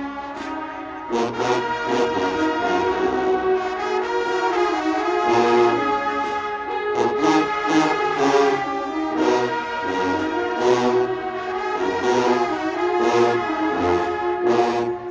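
HBCU-style marching band playing loud, full brass with trombones prominent over a drumline. Repeated percussion hits and low bass-drum thumps run under the sustained brass chords.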